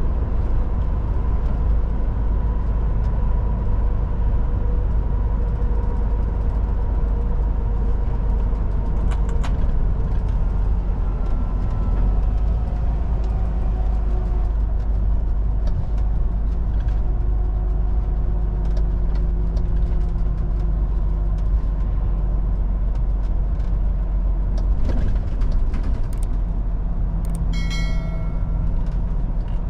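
Heavy truck driving on the road: a steady engine and tyre rumble with a faint drivetrain hum that drifts slightly in pitch, and a brief high squeak near the end.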